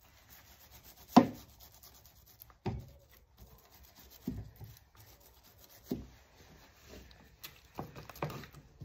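A brush dabbing and rubbing resin into wet fibreglass matting: separate soft strokes about every second or so, the sharpest about a second in.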